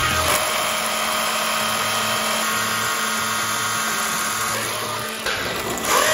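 Electric motor and drivetrain of a Traxxas 4-Tec radio-controlled car whining steadily as it drives, with a quick drop in pitch near the end.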